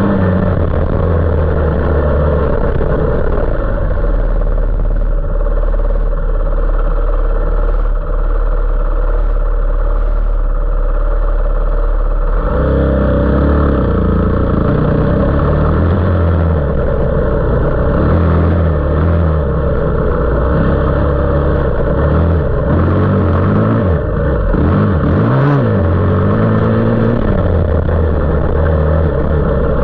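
A 450 off-road engine running hard while being ridden, holding a steady note for about the first twelve seconds, then changing abruptly and rising and falling repeatedly as the throttle is worked.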